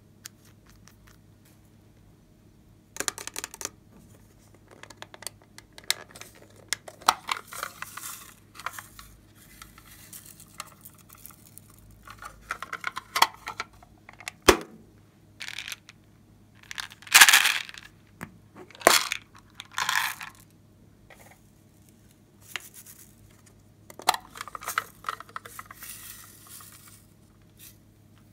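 Small plastic cosmetic containers and a plastic toy case being handled and opened: scattered clicks, clatters and rustling, in clusters, with the loudest run of rustling about two-thirds of the way through.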